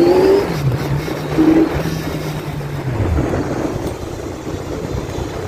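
Kawasaki Z1000's inline-four engine running as the bike rides along, under a steady rushing noise. The engine note holds steady, dips briefly about half a second in, then falls away about three seconds in as the revs drop.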